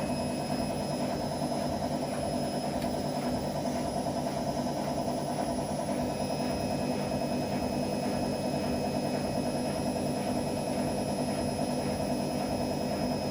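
Whirlpool AWM 864 Aquaprogramm washing machine running with a steady, even motor hum.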